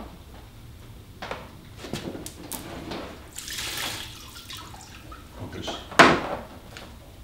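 Fermented plum liquid being siphoned through a thin hose: liquid trickling and splashing with a few knocks as the hose and bucket are handled, and a sudden, sharp slurp about six seconds in as the hose is sucked to draw the flow.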